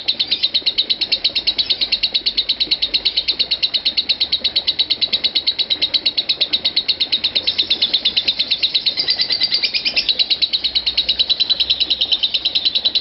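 Masked lovebird singing 'ngekek' in the 'konslet' style: a fast, unbroken chatter of sharp high notes, about eight a second, kept up without a pause.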